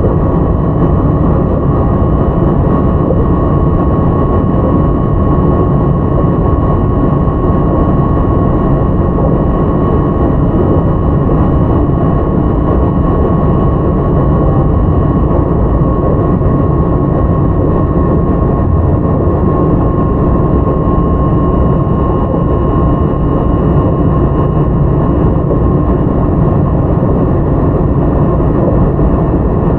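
Interior running sound of a JR 681-series electric multiple unit, heard in its motor car (Toshiba GTO-VVVF drive), running steadily at speed: loud, even rolling and wheel-on-rail noise with a thin steady whine that weakens near the end.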